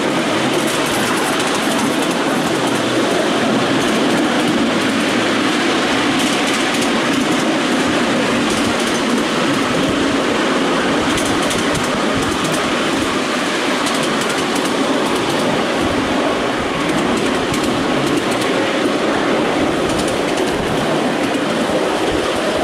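Miniature railway train running steadily along its track, heard from aboard the passenger cars: continuous wheel-on-rail running noise with occasional faint clicks.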